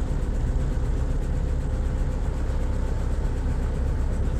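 Motor yacht's inboard engine running steadily at low speed while the boat moves slowly through the harbour, a deep, even hum.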